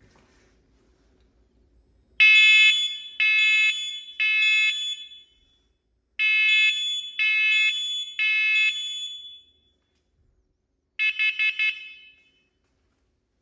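A home detector alarm sounds its test cycle after its test button is pressed. It gives two rounds of three long, high-pitched beeps, the temporal-three evacuation pattern, then four quick short beeps, the carbon-monoxide alarm pattern.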